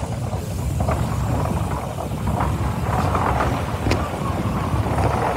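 1916 Peerless steam traction engine running as it drives past: a steady low rumble from the engine and its gearing, with one sharp knock about four seconds in.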